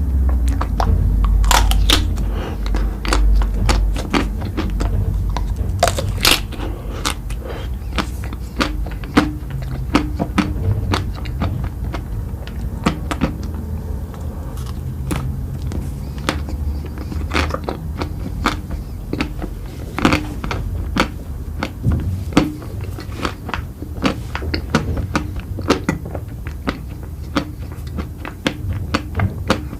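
Close-miked eating: irregular wet clicks and crunchy crackles of chewing and mouth sounds over a low rumble that is heaviest in the first few seconds.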